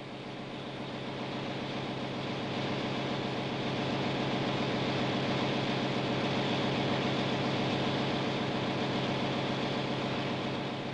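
Ship's engine-room machinery running: a steady mechanical hum and hiss. It swells up over the first few seconds and eases off near the end.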